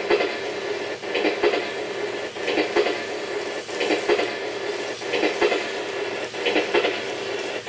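Train-running sound effect of a JNR 101 series electric train from a sound controller: paired wheel clacks over rail joints about every 1.3 seconds over a steady running hum.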